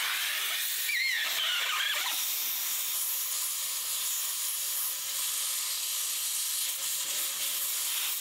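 Compressed air from an air-compressor blow gun blown into a threaded bolt hole, a steady hiss that starts and stops abruptly, with a brief wavering whistle about a second in. The air is clearing the threads where the bolt was binding.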